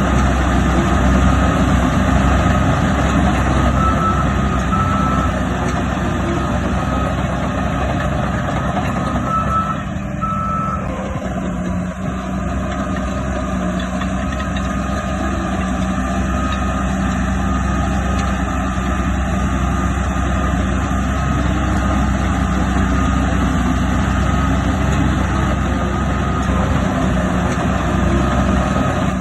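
Heavy diesel earthmoving machinery running steadily with a backup alarm beeping, clearest as two pairs of beeps about a second apart. The beeps signal a machine reversing.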